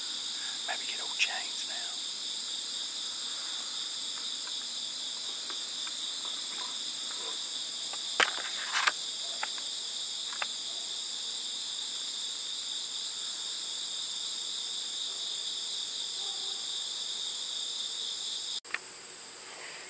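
Steady chorus of crickets and other insects, several high trilling pitches layered together. A few sharp clicks stand out about eight to nine seconds in. The chorus changes abruptly near the end.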